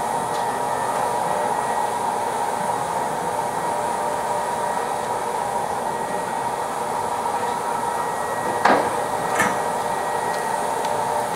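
Road-repair machinery running with a steady whirring drone. Two sharp clinks come close together near the end.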